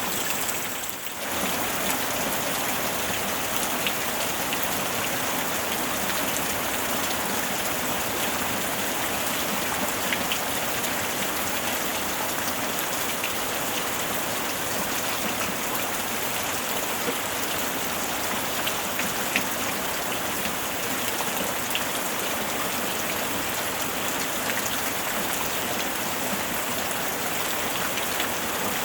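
Steady rain falling, a dense even hiss with scattered sharper drop ticks. It dips briefly about a second in.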